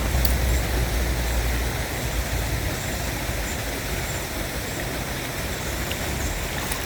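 Steady rushing of flowing river water, with a low wind rumble on the microphone that eases after about two seconds.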